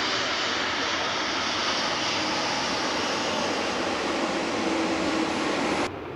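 Boeing 777F freighter's GE90 jet engines running as it moves along the runway: a steady, even rush of engine noise that cuts off suddenly near the end.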